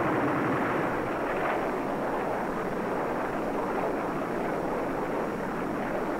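Continuous rumbling of explosions from an air strike on a ground target, with no single blast standing out. The sound is dull, with nothing above the mid-range, as on an old film soundtrack.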